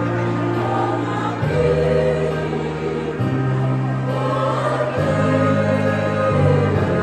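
A women's choir singing, over long held bass notes in the accompaniment that change every second or two.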